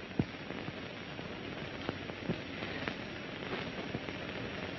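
Dishes clattering: scattered clinks and knocks of crockery over a steady hiss, the noise of a busboy clearing tables.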